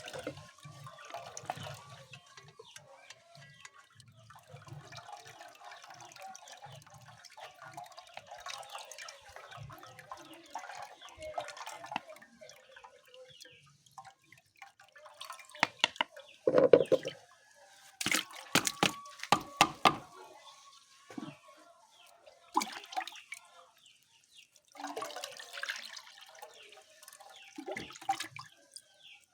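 Liquid being poured and sloshed in a container, with a run of sharp knocks and clatters about sixteen to twenty seconds in.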